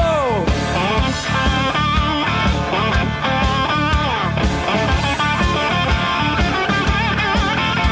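Rock music: an electric guitar plays a lead with notes bending in pitch over a steady drum beat.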